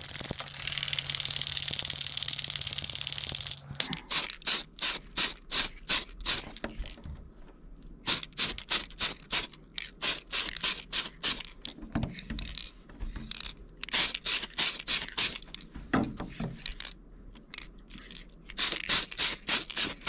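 Aerosol can of black spray paint being shaken hard, its mixing ball rattling inside at about four to five clacks a second, in several bursts with short pauses, to mix the paint before a coat. Before it, a steady hiss cuts off suddenly about three and a half seconds in.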